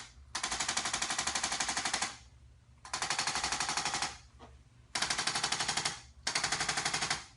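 A handheld electric percussive treatment instrument rattling out rapid, evenly spaced taps in four bursts of one to two seconds each.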